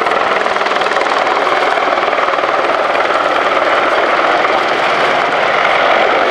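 AgustaWestland Apache AH1 attack helicopter in flight: a steady, dense rush of rotor and twin-turbine noise that grows slightly louder towards the end.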